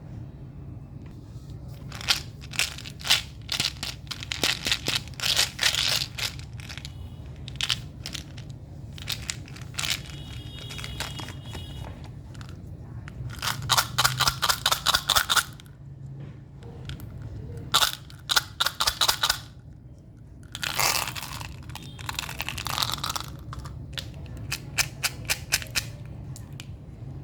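Plastic wrapper of a Cadbury Gems packet crinkling and tearing as it is handled and opened, in repeated bursts of quick crackles.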